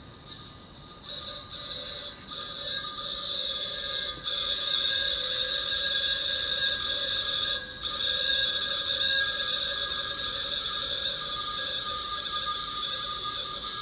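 Refrigerant gas hissing as it flows from a cylinder through the gauge manifold hose into an air conditioner being recharged. It comes in short spurts about a second in, then runs steadily from about four seconds, with a brief break near eight seconds, over a steady hum.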